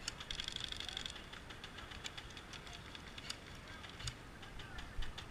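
An airsoft gun firing a short rapid full-auto burst, under a second long, starting about a quarter second in. Scattered sharp single clicks of further airsoft shots follow.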